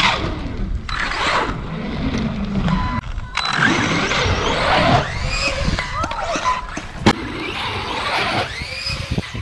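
Arrma Vorteks RC truck's electric motor whining up and down as it is driven up and down a plywood warped-wall ramp, with a sharp knock about seven seconds in.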